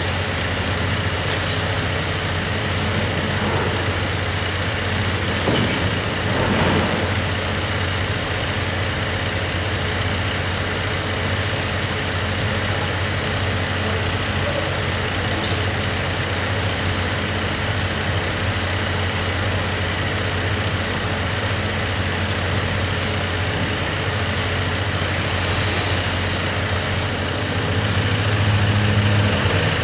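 Rear-loader refuse truck's diesel engine idling steadily, with a few faint clicks; the engine note swells slightly near the end.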